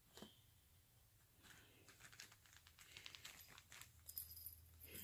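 Faint, scattered rustling and light taps of a kitten playing among small cat toys and a collapsible fabric tunnel.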